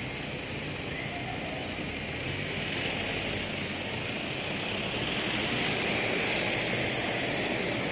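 Steady rushing running noise of a tram under way on its street rails, getting gradually louder.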